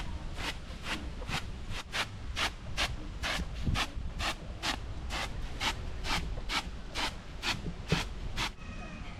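Maize being ground by hand on a grinding stone: even, rhythmic rubbing strokes of stone on grain, about two a second, stopping shortly before the end.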